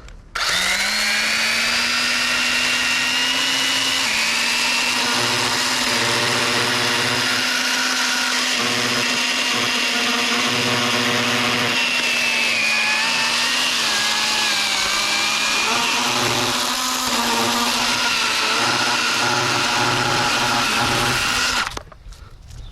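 Echo electric pruning saw's motor running at full speed with a steady whine, cutting through a tree trunk. The pitch sags slightly a few times as it bites, and it stops abruptly near the end.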